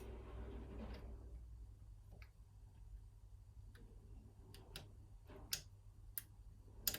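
Faint, scattered clicks of a piano-wire pick and tension tool working the levers inside a 5-lever mortice lock, with a soft rustle in the first second. The clicks are irregular, the sharpest ones coming in the last couple of seconds.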